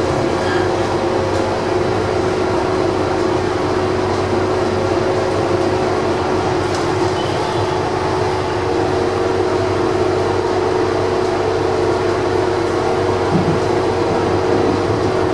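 Rome Metro Line C train running along its track, heard from inside at the front: steady rolling noise with a steady electric hum, whose tone shifts about halfway through.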